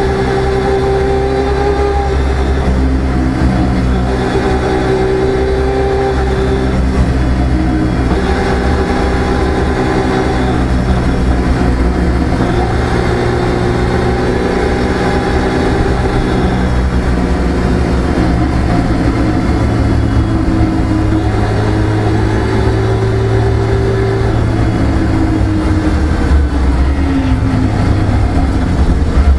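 Car engine running at cruising speed, heard from inside the cabin along with road and tyre rumble. The engine note drifts a little up and down as the throttle changes.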